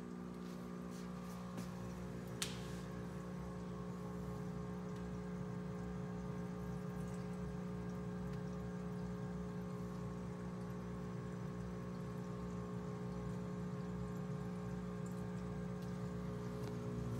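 Red Sea Reefer 450 sump running: a steady electric hum from the protein skimmer and return pumps over a bed of water flowing and trickling through the sump chambers. A single sharp click about two and a half seconds in.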